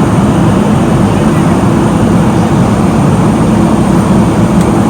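Airliner cabin noise during the climb after takeoff: a steady, loud rumble of engines and rushing air, with a low hum running through it.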